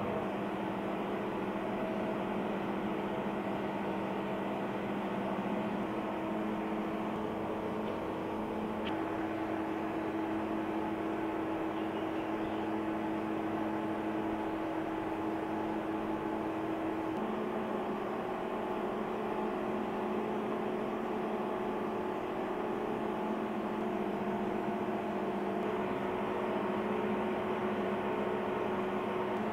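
Steady electrical hum from a room of motor-control and DC thyristor drive panels, with several held tones over a faint whir. One of the tones drops slightly about halfway through.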